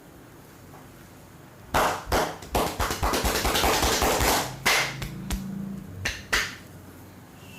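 Hands striking the body in a percussive massage: a few sharp slaps about two seconds in, a dense run of fast tapping through the middle, and a few more separate slaps near the end.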